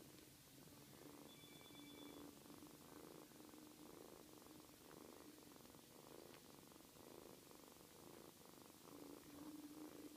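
Siberian cats purring faintly and continuously while the kittens nurse, the purr swelling and easing in steady waves with each breath.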